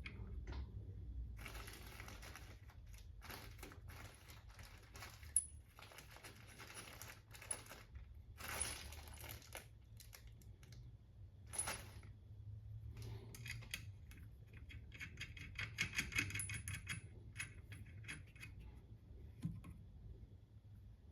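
Small metal parts clinking and clicking: washers, bushing and nut being handled and fitted onto a rear shock absorber's mount, with a sharp click about five seconds in and a quick run of clicks near the end, like a wrench being worked.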